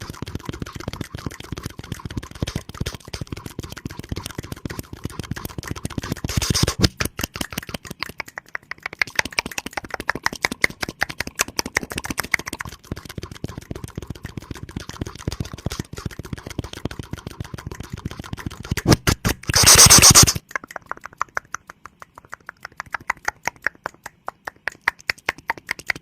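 ASMR mouth sounds close to the microphone: rapid wet clicks and smacks of tongue and lips in quick runs, several a second. About three quarters of the way through comes a short, loud hiss of breath, the loudest moment.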